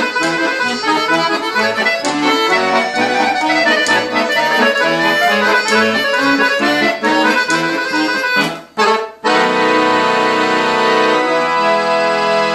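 Guerrini piano accordion playing a fast tune, a running melody over a steady bass-and-chord beat. About eight and a half seconds in it breaks off twice briefly, then settles into one long held closing chord.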